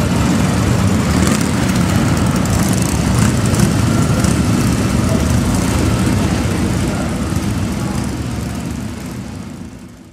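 Motorcycle engines running and idling as riders move off, a steady low rumble that fades out near the end.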